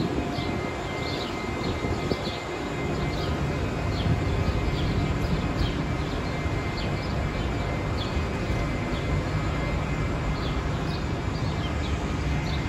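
Steady low rumble of idling city buses at a bus station, with short high chirps repeating throughout.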